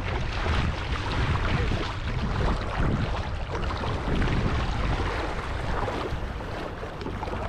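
Wind rumbling on the microphone, with lake water sloshing and splashing around people wading through it.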